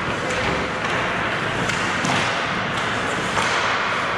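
Steady hubbub of a game in a large hall, with a few scattered thumps.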